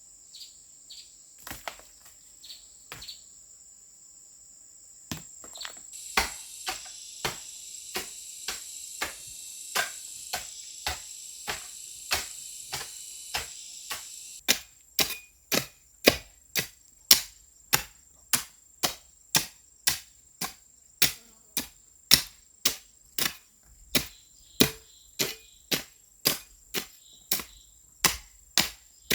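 A hand tool chopping with evenly spaced strikes, about two a second, getting louder about halfway through. Crickets keep up a steady high trill, with a hissing insect buzz that stops about halfway.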